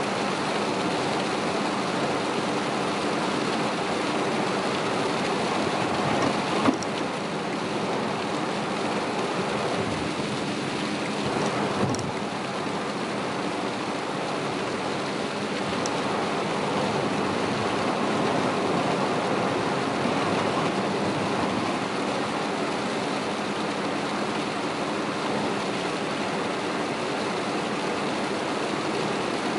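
Steady noise of tyres on a flooded road and heavy rain on a moving car, heard inside the cabin, with a low engine and road hum underneath. Two brief knocks about seven and twelve seconds in.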